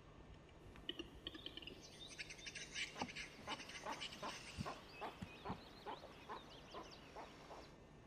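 Eurasian capercaillie display song: a steady run of sharp dry clicks, about three a second, under scratchy, hissing whetting notes.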